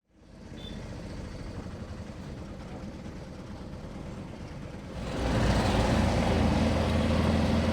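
A vehicle's engine running, with road noise. It gets louder and fuller about five seconds in.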